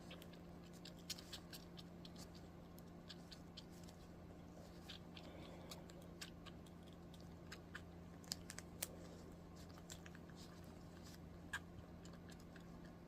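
Kitten suckling on a feeding bottle: faint, irregular little clicks and smacks over a steady low hum.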